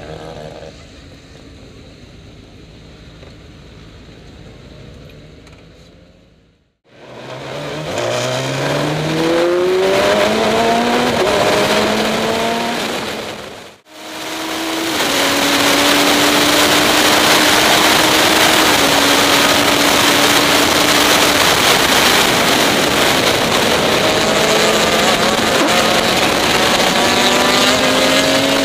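Radical SR3 race car's engine under hard acceleration, with pitch climbing through several gear changes, then running at high revs with heavy wind noise on the helmet-camera microphone. The first few seconds are quieter, with a low steady hum, and the sound drops out briefly twice.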